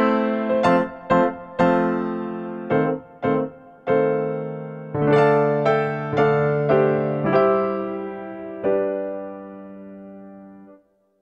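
Background music: electric piano playing a slow run of struck notes and chords, each ringing and dying away, with the last chord fading out near the end.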